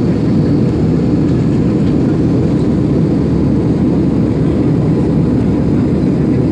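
Steady low rumble of jet engines and rushing air heard inside an airliner cabin as the plane climbs after takeoff.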